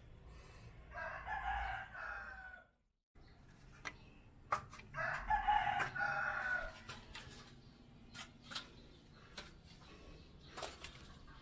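A rooster crowing twice, each crow lasting about a second and a half, followed by scattered light clicks.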